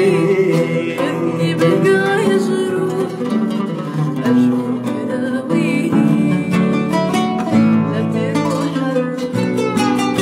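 Oud and acoustic guitar playing together, a stream of plucked notes that grows busier in the second half.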